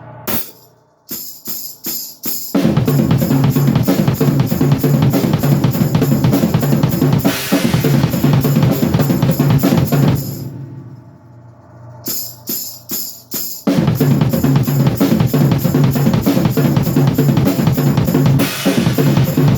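Drum kit warm-up: a few separate strokes, then a long run of fast, dense strokes with heavy bass drum. The run stops briefly, a few single hits follow, and fast continuous playing starts again. A cymbal washes in during each run.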